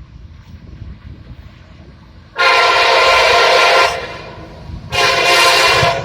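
CSX freight locomotive's air horn sounding two blasts, a longer one about two seconds in and a shorter one near the end, a chord of several tones, over the low rumble of the passing train.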